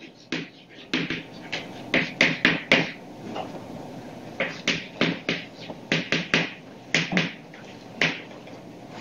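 Chalk writing on a blackboard: irregular runs of sharp taps and scratches as the letters are struck out, with short pauses between runs.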